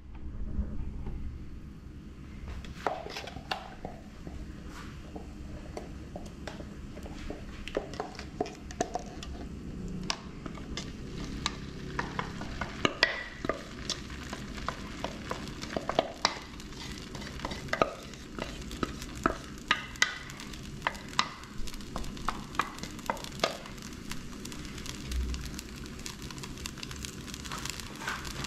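Pizza batter cooking in an oiled nonstick skillet. There is a low steady sizzle with frequent small clicks and pops, which come more often after the first dozen seconds. Near the end a wooden utensil scrapes as it spreads the batter across the pan.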